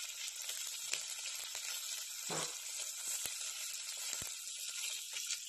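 Hot oil sizzling in a pot with curry leaves, dried red chillies, garlic and cumin frying in it, a tempering for a South Indian dish. A steady hiss with scattered sharp crackles and pops.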